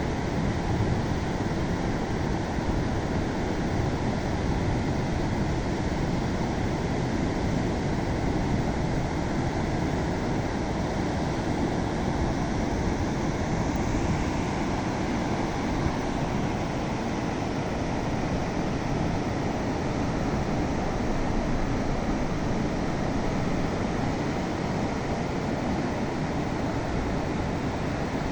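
Ocean surf on a beach: a steady, unbroken rush of waves.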